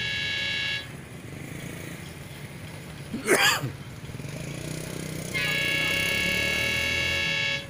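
Horn of an approaching train sounding a high steady chord. One blast cuts off just under a second in, and a second, longer blast of about two seconds comes near the end. Between them a low engine rumble runs on, with a brief loud rush about three seconds in.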